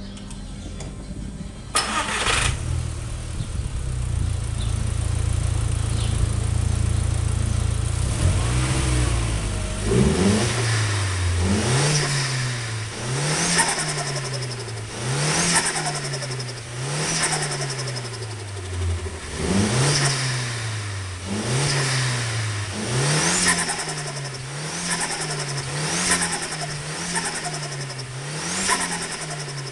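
Turbocharged engine of a Seat Leon Cupra R, at first running steadily. From about a third of the way in it is blipped over and over, about one rev every second and a half, with a hiss of released air on each lift-off: compressor surge at the blow-off valve. A sharp click sounds near the start.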